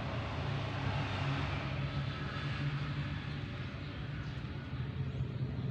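Steady low engine hum, like a motor vehicle running, under a continuous background noise.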